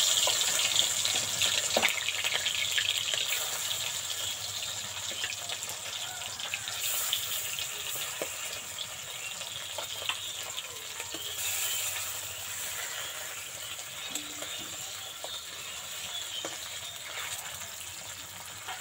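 Tilapia pieces frying in hot mustard oil in a metal kadai: a steady sizzle with scattered crackling pops. It is loudest at the start as the fish go in, and slowly dies down as they fry.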